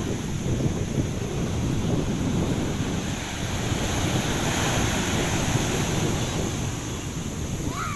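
Sea surf washing on a beach, with wind buffeting the microphone; the wash swells in the middle.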